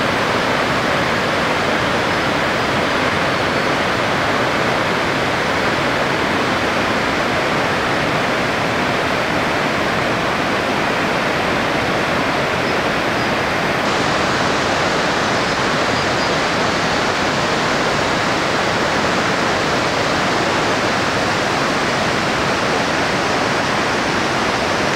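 A whitewater mountain stream rushing over boulders: a loud, steady, even hiss of water.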